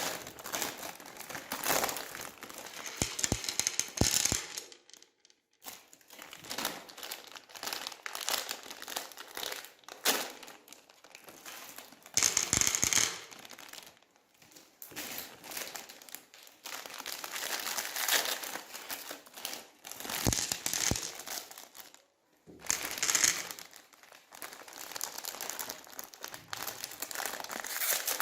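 Plastic candy wrappers crinkling in irregular bursts, with brief pauses between handfuls.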